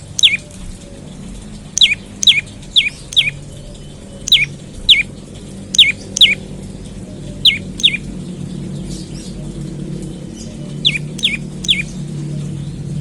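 Prenjak lumut songbird calling in short series of two to four sharp, downward-slurred chirps, repeated every second or two with a longer pause before the last series. A steady low hum runs underneath and grows louder toward the end.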